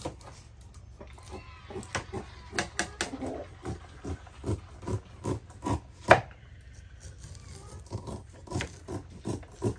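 Kitchen knives slicing kernels off fresh corn cobs: irregular scraping strokes and sharp knocks of the blades on the cutting boards, one or two a second.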